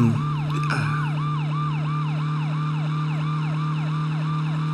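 A steady low hum under a fast electronic chirp that repeats about three times a second, each chirp jumping up in pitch and then falling.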